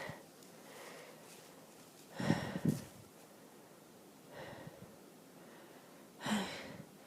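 A person's nasal breathing and sniffing through an allergy-congested nose: a short two-part snort about two seconds in, a faint breath a couple of seconds later, and a sharp sniff near the end.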